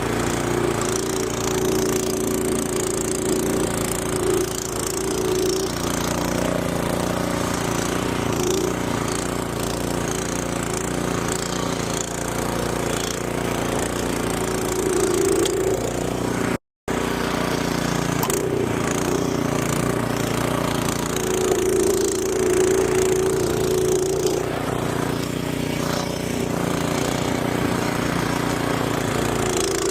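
Gas snowblower engine running steadily. The sound drops out for a moment just past the middle.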